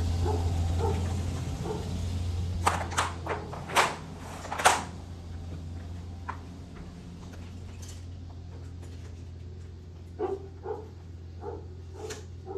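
A low steady hum that eases off over the first few seconds, a run of sharp clicks and knocks a little before the middle, then several short whines from a dog near the end.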